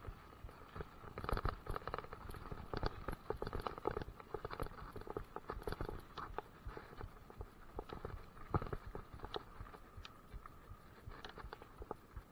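Mountain bike rattling and clattering over a rough dirt trail: irregular knocks and jolts of the frame and handlebar-mounted action camera over tyre rumble, thinning somewhat near the end.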